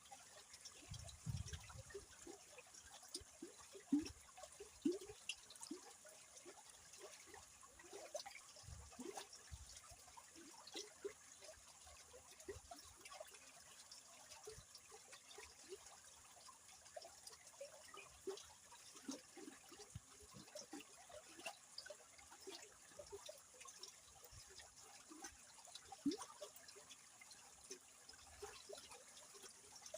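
Faint flowing river water, gurgling and splashing in many small irregular blips over a steady high hiss.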